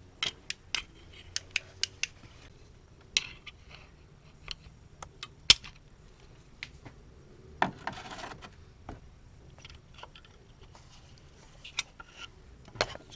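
Scattered sharp clicks and small metallic taps of hand tools and small parts being handled on an engine, the loudest about five and a half seconds in, with a brief scraping rattle about eight seconds in.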